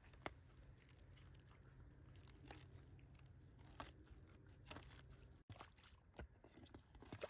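Near silence: a faint low hum that stops abruptly about five and a half seconds in, with a few soft scattered ticks.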